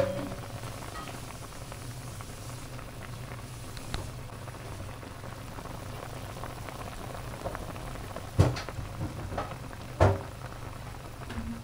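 Fish soup boiling in a wok on a gas stove, a steady bubbling. Two sharp knocks come near the end, about a second and a half apart.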